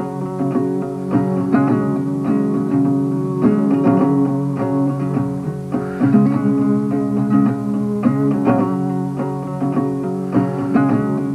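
Background music: a plucked guitar playing a stream of picked notes over sustained low tones.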